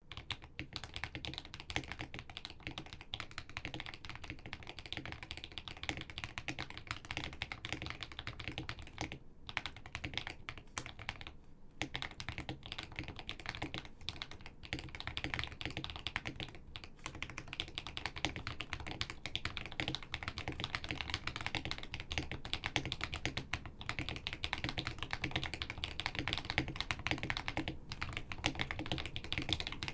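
Fast continuous typing on a Keychron V2 mechanical keyboard with lubed Akko Lavender switches and PBT keycaps, its keystrokes popping like bubble wrap. There are short breaks about a third of the way in.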